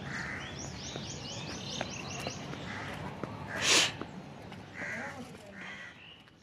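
Crows cawing several times, with a rapid run of about ten high, rising bird chirps in the first couple of seconds. One short, loud hiss comes a little past halfway.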